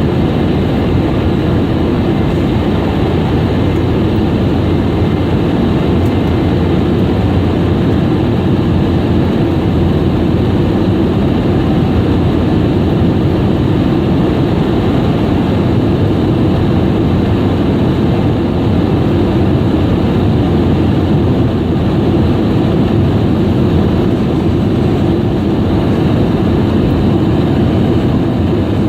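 Steady jet engine and airflow noise inside the cabin of a Boeing 717, heard from a seat near its rear-mounted engines, unchanging in pitch and level.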